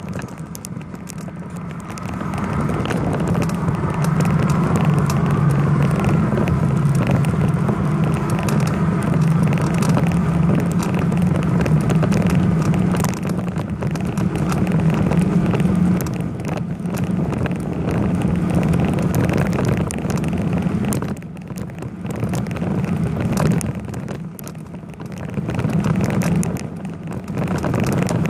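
Steady road noise recorded from a camera mounted on a moving bicycle: a continuous rushing noise over a low hum, dipping briefly twice near the end.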